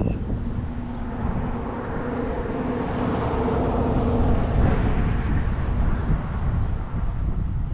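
Storm wind buffeting the microphone, with a vehicle's steady hum and a rushing noise that swells and then drops away about five seconds in.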